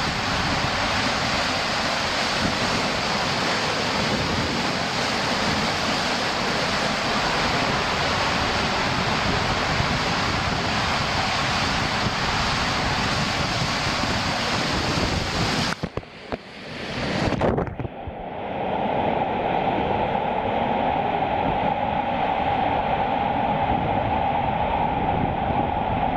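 Water and riders rushing down an enclosed water slide tube: a steady, loud wash of noise. It cuts out abruptly about two-thirds of the way through, then comes back duller.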